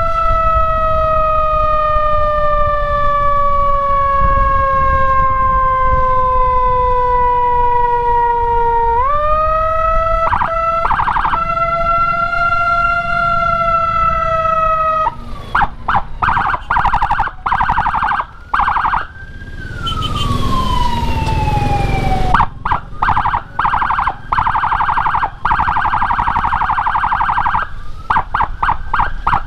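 Electronic escort siren (Whelen HHS Lite module through a Senken YD100i horn speaker) cycling through its tones. It gives two slow falling wails, then a fast pulsing tone about halfway in, then a single falling sweep with a brief rush of hiss, and fast pulsing again near the end.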